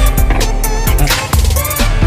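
Background music with a heavy bass line and a drum beat.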